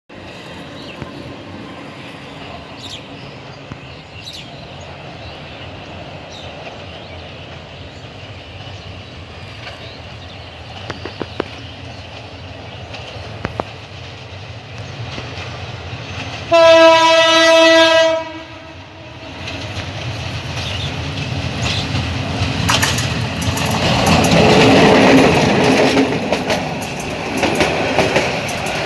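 Diesel locomotive horn sounding one long blast of about a second and a half, then the train approaching and passing, its wheels rattling on the rail joints and growing loud near the end.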